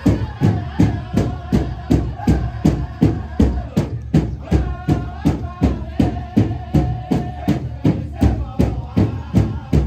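A powwow drum and singers performing for a grand entry procession. A large drum is struck in a steady, even beat of about two strokes a second, and several voices sing together in long held notes over it, pausing briefly about four seconds in before coming back in.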